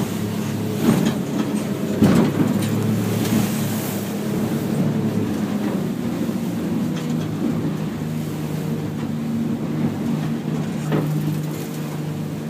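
A boat's engine running steadily at cruising speed, heard from inside the wheelhouse, with a few short knocks through the hull and cabin near the start and again near the end.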